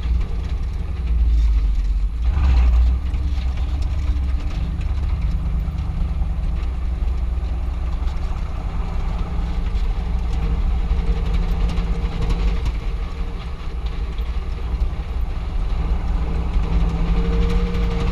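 Engine and road rumble heard inside the cab of a moving old truck: a steady low drone whose engine note shifts in pitch several times as the revs change, louder about one to three seconds in.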